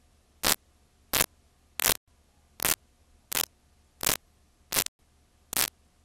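Static from blank, unrecorded videotape played past the end of the recording: short, loud bursts of noise at an even pace, about three every two seconds, with faint hiss between them.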